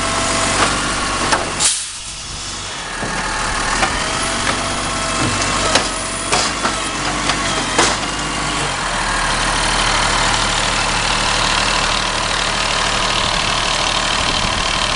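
Side-loader garbage truck's automated arm lifting and tipping a wheelie bin into the hopper and setting it back down, with sharp knocks and clatter from the bin and arm over the running diesel engine. After about nine seconds the knocks stop and a steady, slightly louder engine sound takes over.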